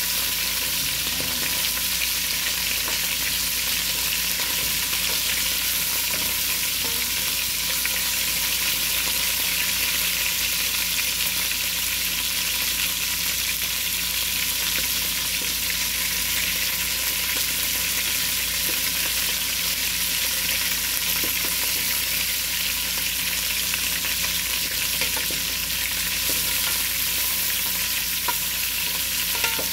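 Pieces of lamb browning in hot oil in an aluminium pot, sizzling steadily. A couple of faint clicks come near the end.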